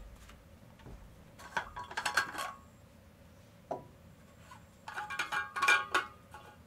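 Metal objects clinking and clattering with short rings, in two bursts about three seconds apart, with a single knock between them.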